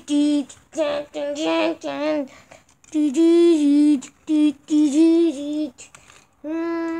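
A high voice singing unaccompanied in short phrases of held, level notes with small dips between them, and a longer held note near the end.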